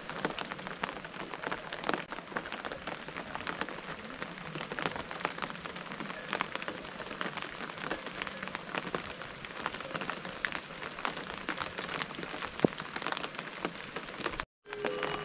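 Steady rain falling on grass and leaves: a dense patter of drops with many sharp individual ticks. The sound cuts out for a moment near the end.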